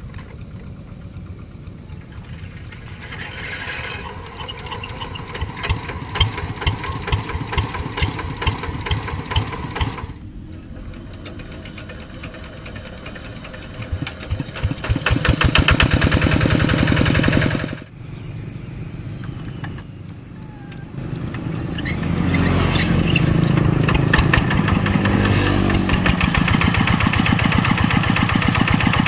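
Single-cylinder diesel engines of two-wheel hand tractors being hand-cranked and started, one after another, each then running with a rapid, even firing beat. The sound changes abruptly several times between engines, and the last one runs loudest and steady.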